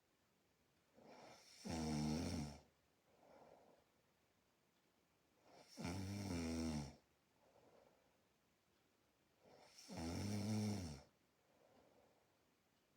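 A sleeping person snoring in a slow, regular rhythm. There are three snores about four seconds apart, each about a second long, with a softer out-breath between them.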